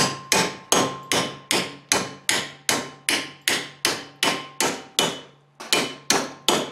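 Hammer blows on a metal bar clamped in a bench vise, bending it over. The strikes are steady, about two and a half a second, each ringing briefly, with a short pause a little after five seconds in.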